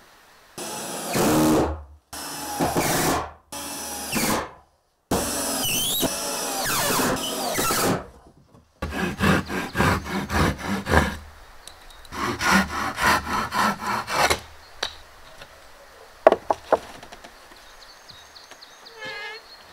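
Wooden boards being cut with woodworking tools, in short clips joined by abrupt cuts: bursts of tool noise, then a saw going in steady strokes about three a second, and a few sharp knocks near the end.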